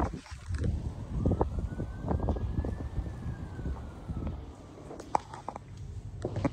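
Distant emergency-vehicle siren wailing, one slow rise and fall in pitch, over a low rumble with scattered knocks.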